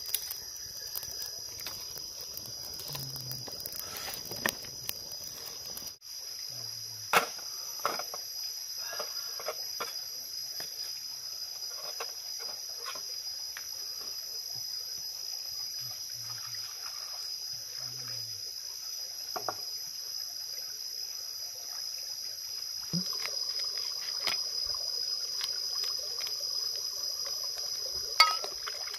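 Steady high-pitched insect drone with scattered light clicks and knocks; in the first few seconds a small twig fire crackles. From about three-quarters of the way through, hands sloshing and rubbing food in a shallow stream grow louder, with a couple of splashes near the end.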